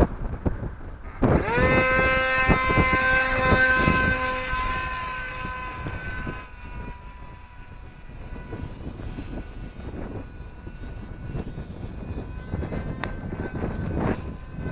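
Electric motor and propeller of an AXN floater jet RC plane whining up in pitch about a second in, then holding a steady high whine. It fades after about five seconds to a faint whine under wind buffeting on the microphone.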